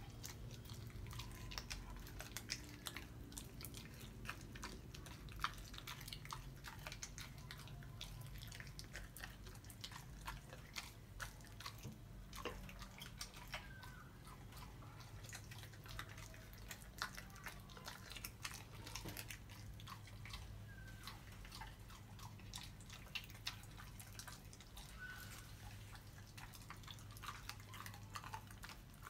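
Puppy chewing and crunching frozen chicken bones: faint, irregular clicks and cracks from teeth on bone and ice.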